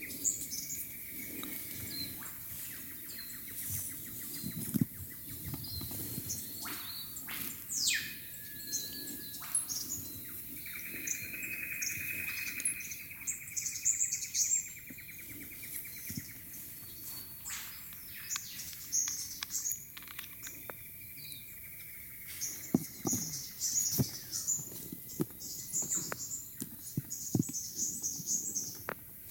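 Birds chirping and calling throughout, over frequent small clicks and taps as little plastic and metal pump attachments are handled and set down on a table.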